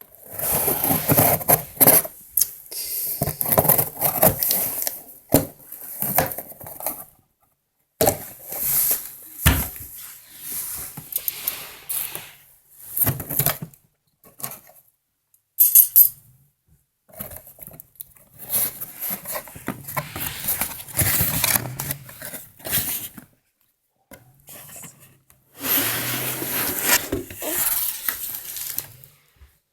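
Irregular rustling and clattering of things being handled, with light metallic clinks, in bursts of a few seconds with short pauses between them.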